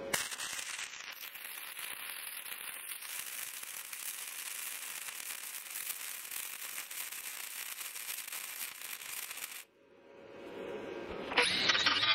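Flux-core wire welder arc crackling steadily against the steel brush deck of a DR Field and Brush mower for about nine and a half seconds, then cutting off. After a short pause, an angle grinder starts grinding the deck near the end, louder than the welding.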